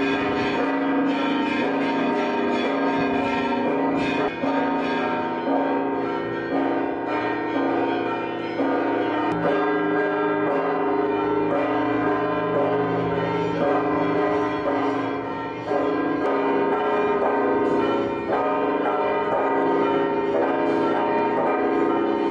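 Church bells ringing a continuous peal, several bells struck over and over in changing order.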